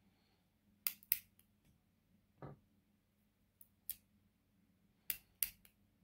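Sharp metallic clicks, mostly in quick pairs, from a stainless North American Arms .22 mini revolver being handled as its cylinder is fitted back into the frame, with one duller knock about two and a half seconds in.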